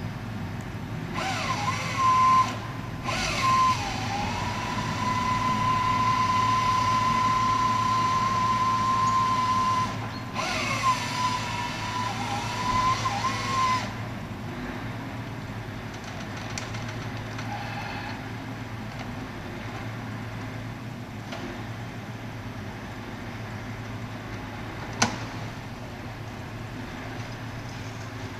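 Crane-mounted grapple saw's chainsaw cutting through a poplar trunk. It speeds up about a second in, runs at a steady high whine with two brief dips, and stops about halfway through. A low engine hum sits underneath, with a single sharp click near the end.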